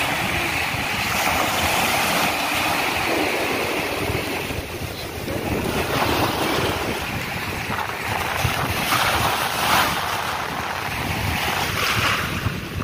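Small sea waves breaking and washing up a sandy beach, surging several times, with wind buffeting the microphone.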